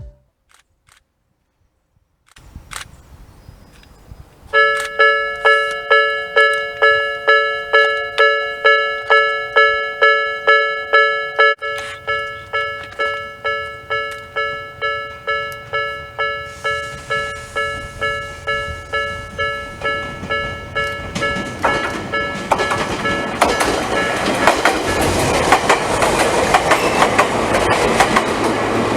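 Railway level-crossing warning bell ringing about twice a second, then a Jomo Electric Railway train approaching, its rumble and wheels on the rails growing louder over the bell in the last several seconds.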